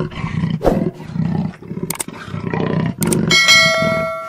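Lion and spotted hyenas growling and roaring in a fight, in repeated low pulses. About three-quarters of the way in, a click and a bright bell chime from a subscribe-button animation ring out over the animal sounds.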